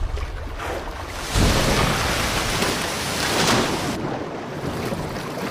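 A big wave pushed up by killer whales washing over an ice floe: a sudden rush of water about a second in, pouring and splashing for a couple of seconds, then easing off.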